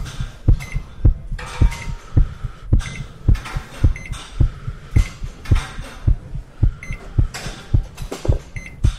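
Heartbeat: steady low thumps, about two a second, with swells of hiss every couple of seconds.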